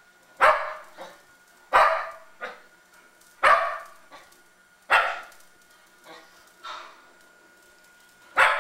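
Shetland sheepdog barking at her own image on the TV: five loud, sharp single barks spaced one to two seconds apart, with a few fainter barks between them.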